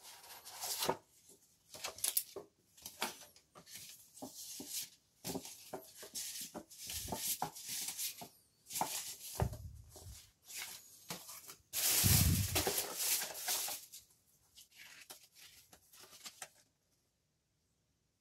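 Paper stencil sheets in a clear plastic sleeve being pulled from a cardboard box and leafed through: irregular rustling and crinkling, with a longer, louder crinkle about twelve seconds in.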